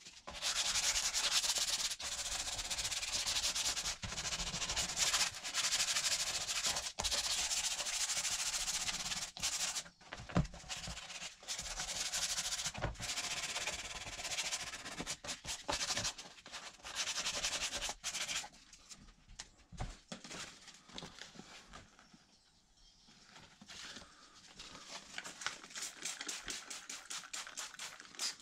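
Sandpaper rubbed by hand over a plastic ATV body panel in rapid back-and-forth strokes. The sanding dies down for a few seconds about two-thirds in, then resumes in quicker, shorter strokes.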